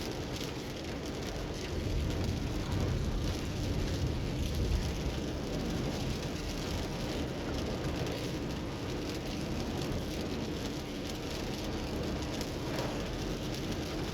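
Steady rain on a moving car, with a low rumble of road and engine noise beneath.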